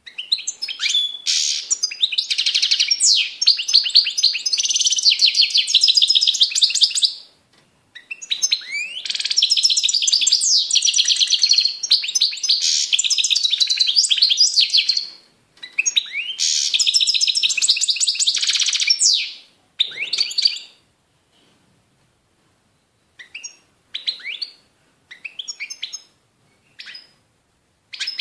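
European goldfinch (Carduelis carduelis) singing: three long runs of fast, high twittering song with trills and buzzy notes, followed near the end by a scatter of short separate call notes with pauses between them.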